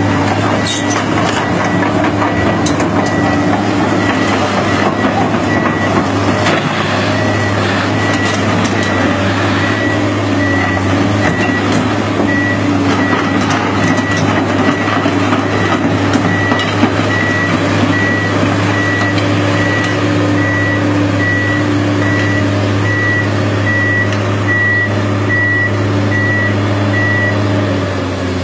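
Komatsu PC210 hydraulic excavator running, its diesel engine steady under the evenly repeating high beep of its travel alarm. The engine note dips briefly near the end.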